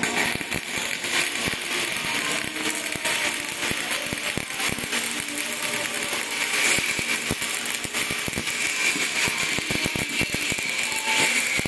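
Shielded metal arc (stick) welding: the electrode's arc crackling steadily as it burns along the joint, a dense run of tiny pops and sizzle without a break.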